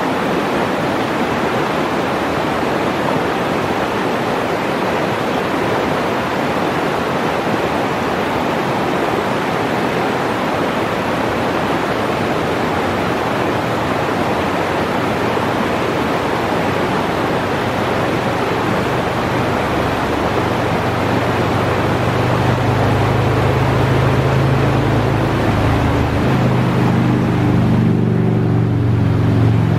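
Kaslo River, a shallow mountain river, rushing over rocks in a steady, full roar of water. From about two-thirds of the way through, the low hum of a vehicle engine comes in and grows louder toward the end.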